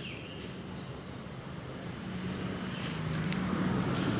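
Insects droning outdoors: a steady, thin, high-pitched whine that holds without a break. Under it, a low rustling noise grows slowly louder toward the end.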